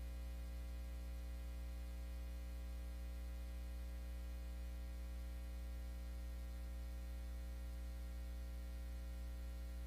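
Steady low electrical hum with a fainter buzz and hiss above it, unchanging, with no music or voice.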